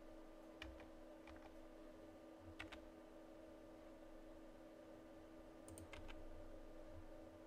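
Near silence with a steady low hum and a few faint clicks, some in quick pairs, from a computer keyboard and mouse in use.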